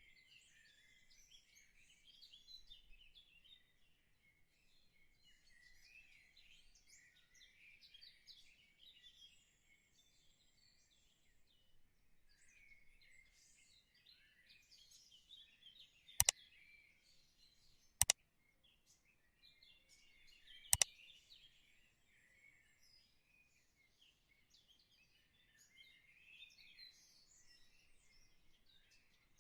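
Faint chorus of small birds chirping continuously, with three sharp clicks a couple of seconds apart past the middle.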